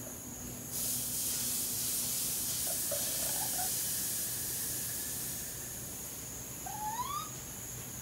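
A steady hiss cuts in about a second in and fades after about five seconds. Faint short chirps come from baby raccoons partway through, and near the end comes one rising cry: a raccoon kit calling for its mother.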